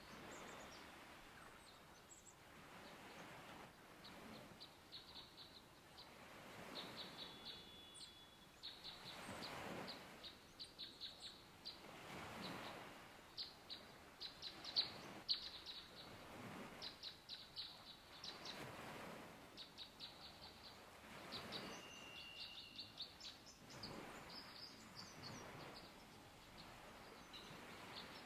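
Faint footsteps scuffing on a dirt and rock trail every couple of seconds, with a small bird singing rapid high trills and chips over them.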